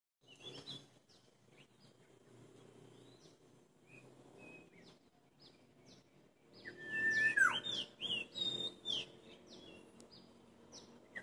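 Wild birds calling in the trees: scattered short chirps at first, growing louder and busier about seven seconds in, with clear whistled notes that slide down in pitch. A faint steady hum of outdoor background noise lies beneath.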